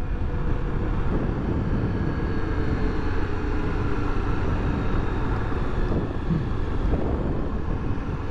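Honda XRE300's single-cylinder engine running as the motorcycle rides along and slows down, mixed with wind rushing over the microphone and road noise.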